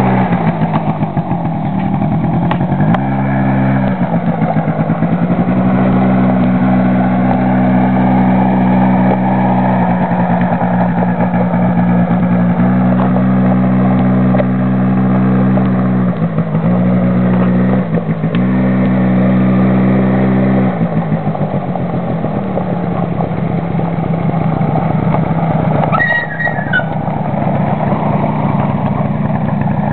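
Small AEON youth quad's engine running as it is ridden, its pitch rising about three seconds in and holding steady, dipping briefly twice, then dropping back to a lower steady note about two-thirds of the way through.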